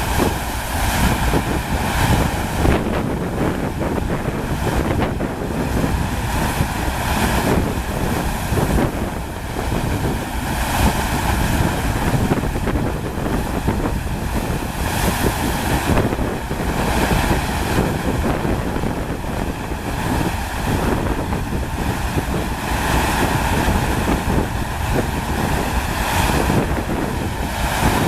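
Steady rush of water from a FlowRider surf simulator, its pumped sheet of water pouring over the ride surface, with wind buffeting the microphone.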